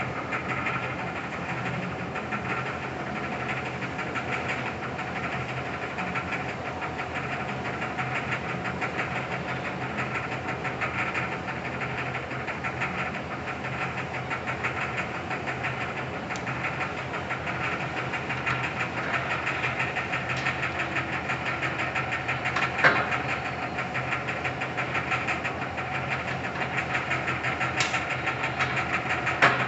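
Oliver Model 600 drill grinder running under power: its 2-horsepower motor and grinding wheel give a steady mechanical hum with a fine, even pulsing. A sharp click comes about 23 seconds in and another near the end.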